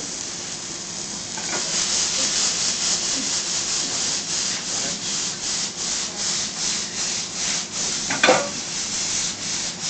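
Frying pan of vegetables being shaken back and forth over a gas burner: a rhythmic scraping swish, about three strokes a second, starting about a second and a half in. A sharp knock about eight seconds in.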